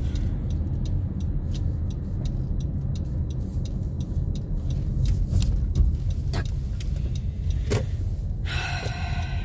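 Cabin noise of a car driving through city traffic: a steady low rumble from the engine and tyres, with light scattered clicks. Near the end a short pitched tone sounds for under a second.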